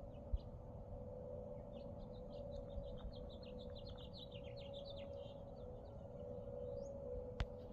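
A bird giving a rapid run of short, high chirps for about four seconds, faint, over a steady hum. Two sharp clicks, one just after the start and one near the end.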